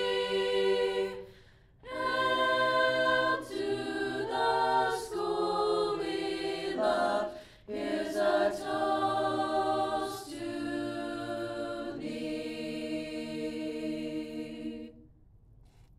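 Choir singing the school's alma mater in sustained harmony, phrase by phrase, closing on a long held final chord that ends about fifteen seconds in.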